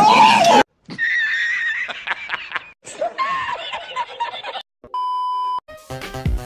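A man laughing hard and high-pitched in two long fits, cut in just after a held sung note breaks off. About five seconds in comes a short steady beep, and dance music starts near the end.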